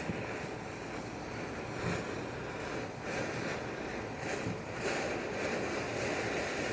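Steady wind noise buffeting the microphone, a rumbling rush with a few swells in strength.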